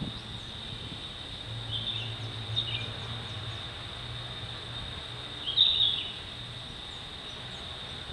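Outdoor ambience: a steady high-pitched insect drone with three short bird chirps, the loudest just past the middle, over a faint low hum.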